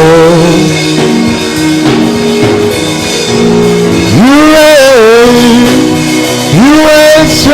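Worship music: a solo voice sings long, held notes that swoop up into each phrase. Sustained instrumental chords play underneath.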